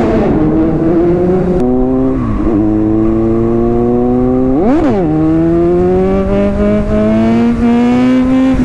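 Kawasaki Z900 inline-four motorcycle engine heard from the rider's seat, accelerating along the road with wind noise, its engine note climbing steadily. Two quick gear changes come about two and a half and five seconds in, each followed by a lower note that climbs again.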